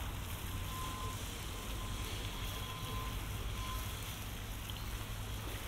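Steady town-street background noise with a low rumble, of the kind distant traffic gives, and a faint thin tone from about one to four seconds in.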